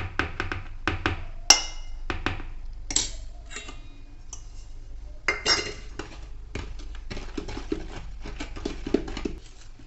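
Steel spoon and small steel bowl clinking and scraping against a steel mixing bowl as flour is scooped out, with one sharp ringing clink about one and a half seconds in. Later comes a run of light scrapes and taps as the spoon stirs flour in a plastic bowl.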